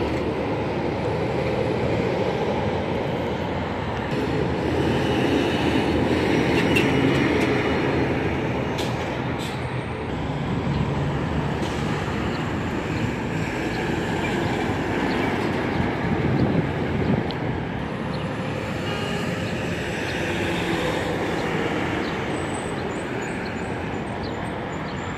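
Steady road traffic noise from heavy trucks and cars passing close by. A dump truck towing a dump trailer is going by at the start, and a tractor-trailer passes near the end.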